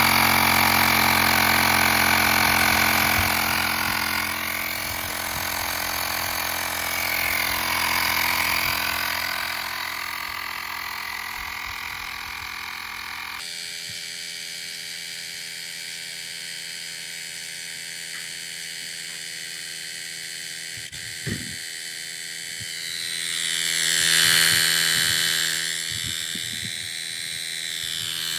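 Xiaomi Mi Air Compressor 1S, a small battery-powered electric tyre pump, running steadily as it inflates a bicycle tyre through its hose, with a continuous motor-and-compressor drone. The sound changes abruptly about halfway through and swells louder again near the end.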